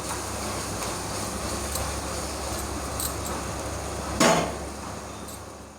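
Onion and spice masala sizzling in oil in a clay pot, a steady hiss, with one sharp clink about four seconds in. It fades out near the end.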